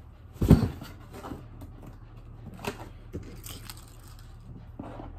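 A loud thump about half a second in as a cardboard shipping box is handled and set down, followed by a few light scrapes and clicks of hands working at the box.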